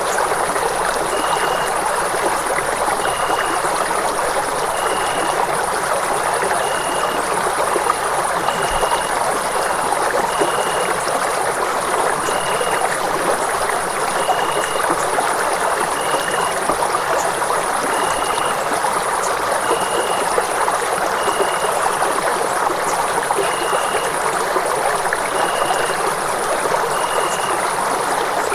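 Running water rushing steadily, in an even, unbroken flow. A faint short high note repeats about every two seconds over it.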